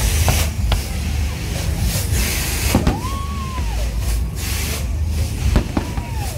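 Fireworks going off: sharp bangs and crackling from bursting shells over a steady low rumble, with a whistle that rises, holds and falls for about a second near the middle and again near the end.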